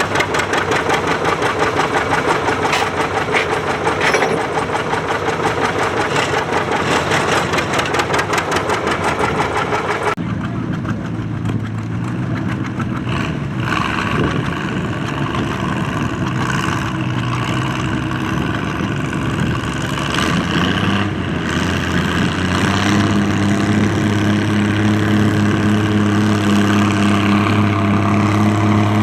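Antique farm tractor engines running hard at a tractor pull, with rapid, dense firing. About ten seconds in the sound changes abruptly to a steadier engine note with a clear pitch, which grows louder near the end.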